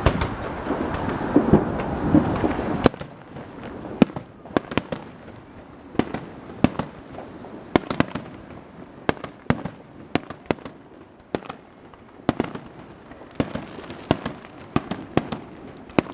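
Fireworks finale: an irregular, rapid string of sharp bangs and cracks, often several a second. The bangs begin about three seconds in, after a louder stretch of dense noise.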